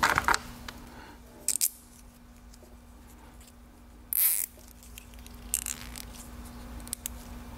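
Small handling noises of pliers and a plastic zip tie: a few light clicks and knocks, and a short rasping zip about four seconds in as the tie is pulled round the handles.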